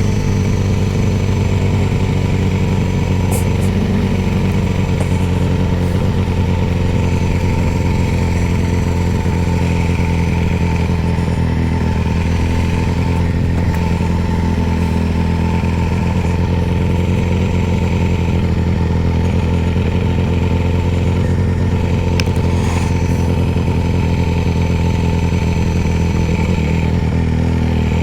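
Motorcycle engine running at a steady speed while riding, its pitch holding nearly constant.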